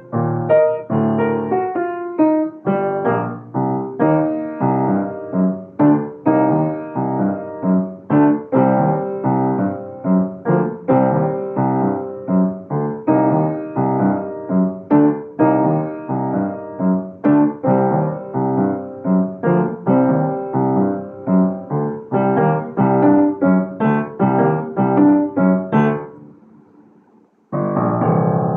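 Upright piano played with both hands, a steady run of notes and chords that ends with a final chord dying away. Just before the end a different, loud sound cuts in.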